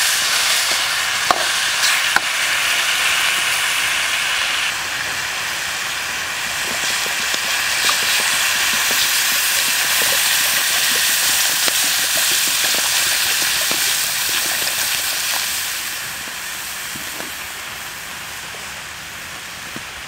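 Snake meat and aromatics sizzling in a hot steel wok, with two sharp clicks of the metal ladle against the pan about one and two seconds in. Water is poured into the wok partway through, and the hiss dies down over the last few seconds as the mixture turns to broth.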